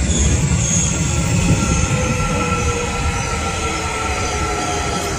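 Electric subway train running: a steady low rumble with a thin whining squeal that comes in about two seconds in and holds.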